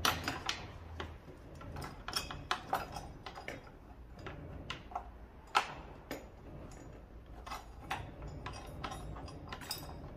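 Irregular clicks and metal taps as a battery hold-down bracket is worked into place over a car battery in the battery cage, with one sharper knock about halfway.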